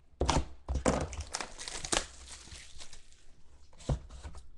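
Plastic wrapping being slit and torn off a sealed box of trading cards, crinkling and tearing, strongest in the first two seconds. A short knock near the end as the box is handled.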